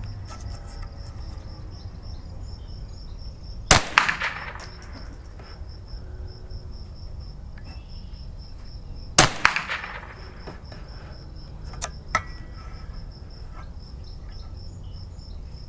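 Two .22 Long Rifle shots from a Marlin Model 60 semi-automatic rifle, about five and a half seconds apart, each trailing off in a short echo. Insects chirp steadily in the background.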